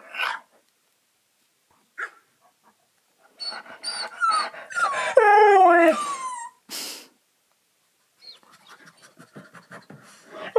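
A husky's talking vocalization: a drawn-out whining howl that slides down in pitch, the loudest sound here, followed near the end by soft, rapid panting.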